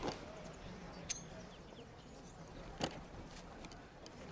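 Quiet open-air background with faint bird chirps and two short sharp ticks, one about a second in and one near three seconds in.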